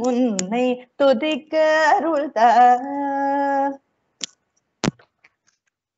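A woman sings the closing phrases of a Tamil devotional song solo and unaccompanied, in Carnatic style with wavering, ornamented notes. She ends on a held note a little under four seconds in. Two clicks follow.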